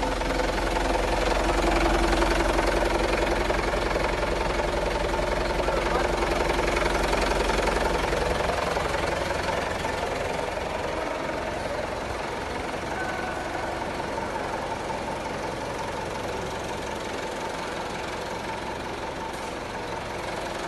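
Diesel truck engine idling steadily, with a knocking drone; it is louder for about the first eight seconds, then quieter.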